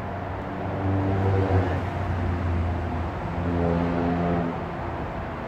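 A road vehicle's engine going by: a low, steady hum that swells about a second in and shifts to a higher pitch around three seconds in, then fades, over a constant background rumble.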